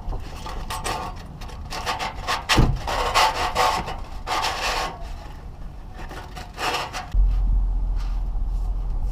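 Sandpaper rubbed by hand around the freshly cut edge of a light-mounting hole in a metal truck bumper, deburring the bare metal in a run of short scrubbing strokes, then a few more strokes later. A steady low rumble comes in near the end.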